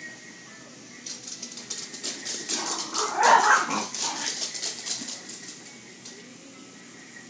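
Two dogs, one a Jack Russell terrier, playing rough on a hardwood floor: claws skittering and scrabbling, with a loud burst of play barking a little after the middle.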